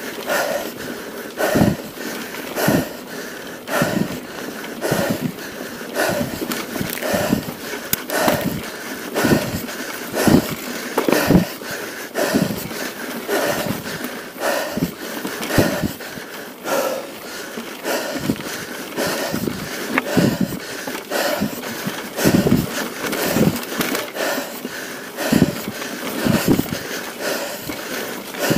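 A mountain biker breathing hard from the effort of climbing, a rhythmic pant about three times every two seconds, over a steady hiss.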